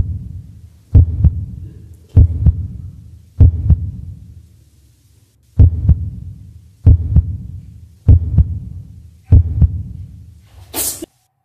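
Heartbeat sound effect: a steady series of low double thumps about once every 1.2 seconds, eight beats with one short pause midway. A brief hiss comes just before it cuts off.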